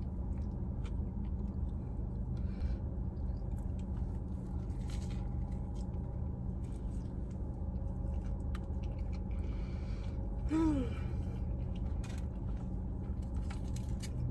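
Chewing and wet mouth clicks from eating a fish sandwich, over a steady low hum inside a parked car. About ten and a half seconds in, a short voiced hum falls in pitch.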